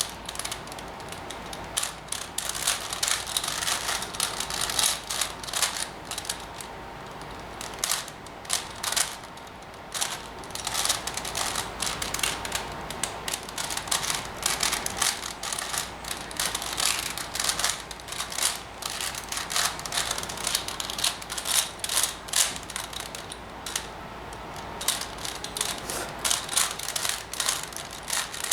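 A 4x4 Rubik's cube (Rubik's Revenge) being turned quickly by hand: a fast, irregular run of plastic clicks and rattles as its layers snap round, with brief pauses. Its centres and edges are already paired, so it is now being solved like a 3x3.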